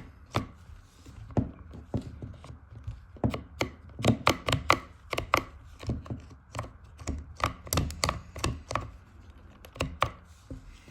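Irregular clicks and knocks from the throttle trigger and rear handle parts of a Husqvarna 372XP chainsaw being handled, with a new throttle cable and trigger spring just fitted.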